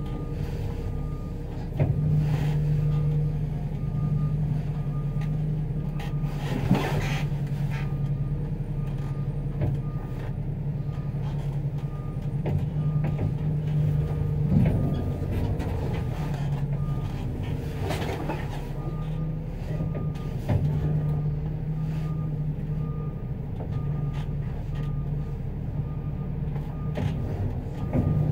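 Ladder truck's engine running with a steady low hum, heard from inside the rear tiller cab, with a truck backup alarm beeping regularly through much of it and a few scattered clunks.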